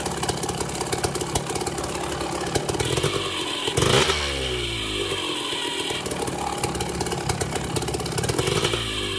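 Kawasaki KDX two-stroke dirt bike engine idling with a fast clattering rattle. It is blipped once about four seconds in, the pitch shooting up and falling back to idle. The rattle is the weird sound that the bike is making.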